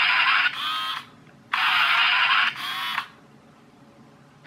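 Steering motor of a Chicco Drift RC toy car whirring through its worm gear to swing the whole drive-motor unit round. It runs twice, each time a loud whir of about a second followed by a shorter, quieter one, then stops about three seconds in.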